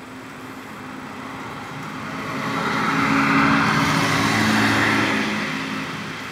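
A car driving past. Its engine and tyre noise swell to a peak about three to five seconds in, then fade away.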